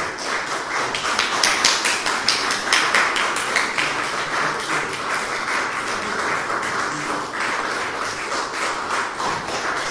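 Audience applauding: a dense patter of many hands clapping, with a few louder, sharper claps standing out between about one and three and a half seconds in.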